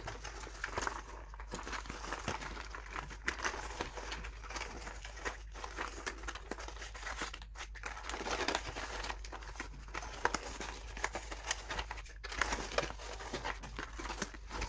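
Packaging rustling and crinkling, with many small taps and clicks, as thin foam jigsaw pieces are shaken and pulled out of a cardboard box.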